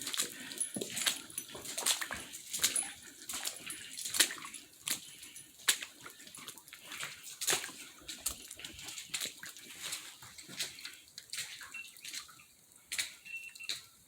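A dog breathing hard in quick, irregular breaths, about two or three a second.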